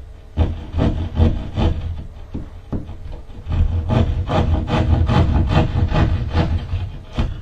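Back-and-forth strokes of a hand tool cutting or rasping drywall. The strokes are uneven with short pauses at first, then settle into a steady run of about three a second.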